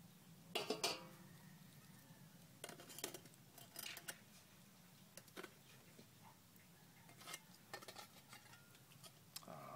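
Faint, scattered metallic clinks and clicks of cookware being handled as the biscuits are uncovered and checked, the loudest pair about half a second to a second in.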